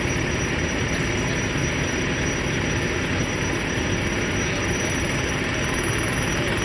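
A fire engine's engine and pump running steadily to supply the hose lines: a constant, loud mechanical drone that does not change.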